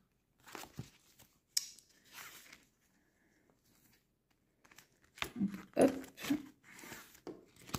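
Clear plastic binder pouches and paper banknotes being handled: scattered rustling and crinkling, a pause of about two seconds in the middle, then busier handling near the end.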